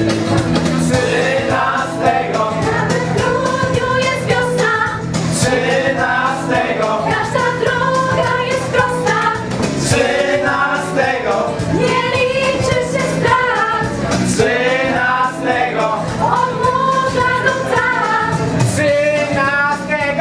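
A voice singing a song over instrumental backing, with steady low notes and a light regular beat.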